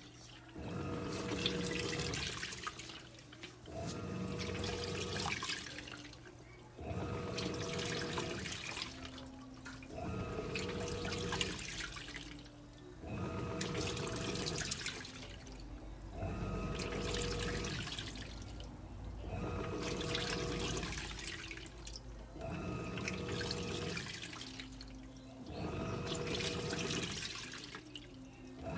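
Electrolux LTE06 washing machine agitating a wash load: the motor hums in runs of about two seconds with short pauses between, repeating about every three seconds, over water sloshing in the drum.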